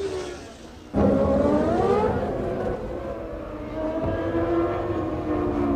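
Formula One car engines at high revs. The note fades over the first second, then cuts suddenly to a louder engine whose pitch climbs, dips and climbs again as it changes speed.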